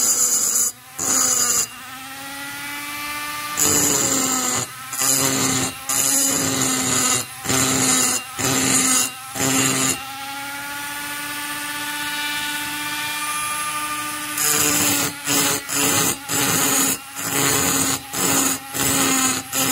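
High-speed rotary tool with a small burr grinding the transfer port of an Echo CS-670 chainsaw cylinder: short scraping strokes about once a second over the motor's steady whine, as the cutter is worked in and out of the port. Twice the strokes stop for a few seconds and only the whine of the freely spinning tool is heard.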